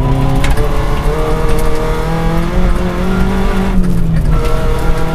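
VW Golf GTI Mk3 rally car heard from inside the cabin, its engine running hard at speed on gravel. The engine note steps up and down several times with throttle and gear changes, briefly easing off about four seconds in, over a constant rush and crackle of gravel under the tyres.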